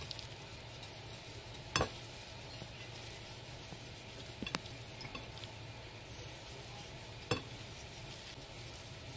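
Hands tossing diced raw beef on a ceramic plate: a faint, soft rustling over a low steady hum, with three sharp clicks, about two, four and a half and seven seconds in.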